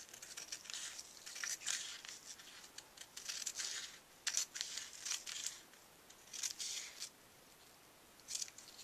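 Scissors cutting thin painted deli paper backed with double-sided tape: a quiet series of short snips with pauses between, a gap near the end, then one more cut.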